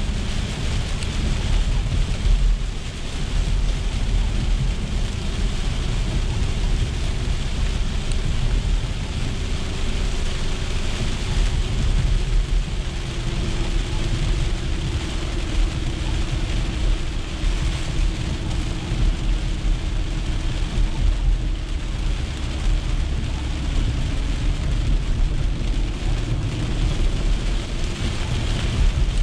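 Inside a car driving through a heavy rainstorm: steady rain on the windshield and roof over the low rumble of tyres on the wet road.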